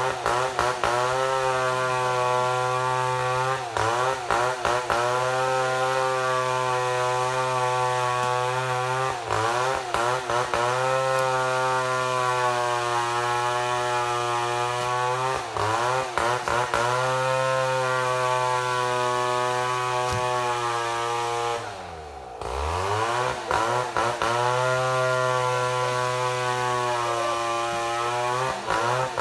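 Chainsaw running at high revs, milling through a mahogany log. Its pitch sags briefly under load every few seconds. About 22 seconds in, the engine falls away sharply and then revs back up.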